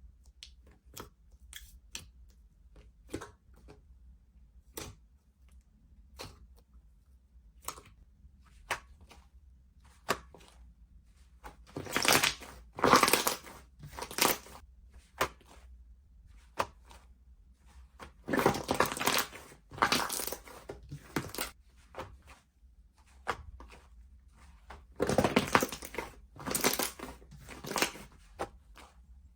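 Soft, cotton-candy-textured slime being handled: scattered small pops and clicks, then three bursts of dense crackling and crinkling as it is squeezed and stretched.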